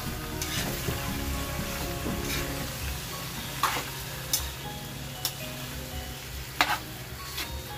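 Sliced boiled beef tongue sautéing with onion and garlic in an aluminium wok, sizzling, while a metal spatula stirs it and scrapes and clinks against the pan several times.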